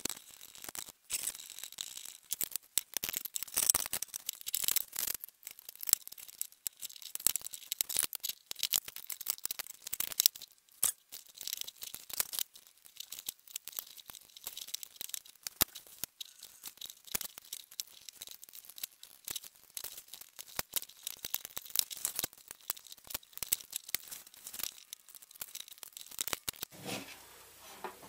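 A metal table lamp being taken apart by hand with a screwdriver: a dense run of small clicks, scrapes and knocks as screws are turned, parts are lifted off and the base is opened.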